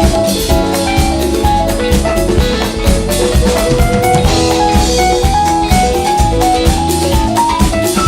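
Live band playing an instrumental jazz-fusion piece: drum kit and percussion keep a busy, even groove under bass and a melody line moving in short notes.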